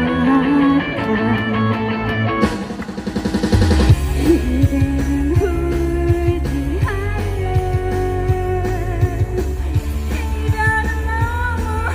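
A rock-style pop song with a guitar-led instrumental passage. A rapid drum fill comes about three seconds in, then bass and drums drive on under a singer's voice.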